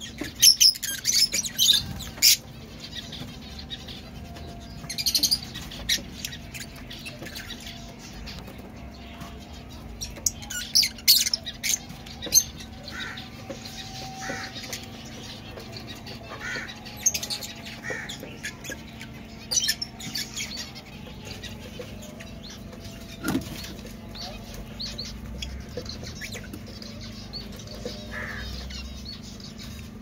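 A flock of Fischer's lovebirds giving sharp, high-pitched chirps in short clusters every few seconds, loudest near the start and around the middle, with wings fluttering as birds flit between perches.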